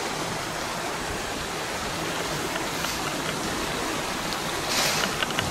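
Small brook running, a steady rushing of water. Near the end a brief rustle with a few short clicks.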